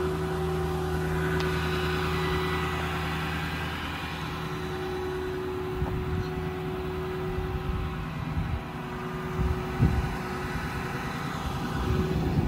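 A Ford F550's 6.4 Power Stroke V8 diesel running at a steady idle, a constant hum. In the second half, irregular low rumbling and a couple of thumps come in over it.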